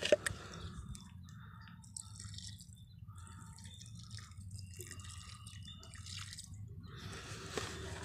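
Scattered drips of water falling onto freshly dug soil around a newly planted sapling, over a low steady hum, with a sharp click right at the start.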